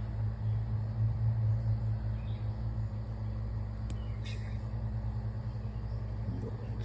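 Steady low motor hum, a little louder in the first couple of seconds, with a faint short click about four seconds in.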